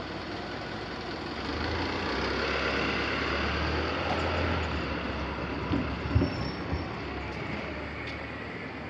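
Road vehicle engine running low as it passes over a level crossing, its hum swelling for a few seconds, then a few sharp clunks a little past the middle as it crosses the rails.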